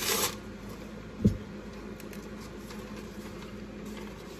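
A quick cutting test with a dull kitchen knife: a short scratchy swish right at the start, then one sharp knock about a second later, over a steady low hum.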